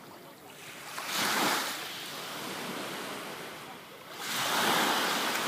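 Mediterranean surf: small waves breaking and washing up the shore, surging twice, about a second in and again after four seconds.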